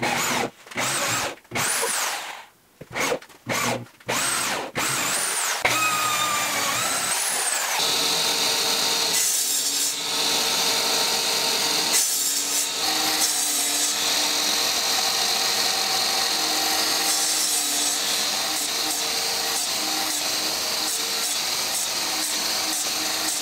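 Handheld corded drill run in short bursts, its pitch rising and falling with each squeeze of the trigger, as a bit bores through stacked plywood. Then, about six seconds in, a Ridgid sliding miter saw spins up and runs steadily for the rest, cutting slots into the plywood.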